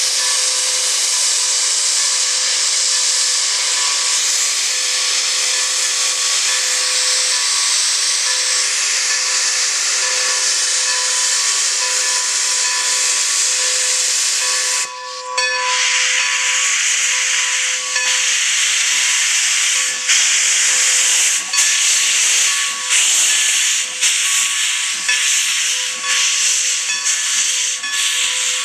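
Strasburg Rail Road No. 90, a 2-10-0 steam locomotive, blowing off steam in a loud continuous hiss with a faint steady tone under it. About halfway through the hiss drops out for a moment, then goes on in uneven surges as steam vents from the cylinders and the locomotive gets under way.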